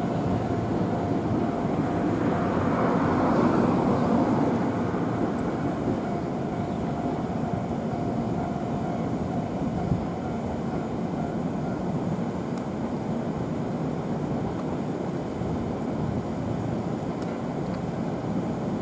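Steady mechanical rumble of a rail yard and its surroundings with a faint constant hum, swelling about three to four seconds in and then settling.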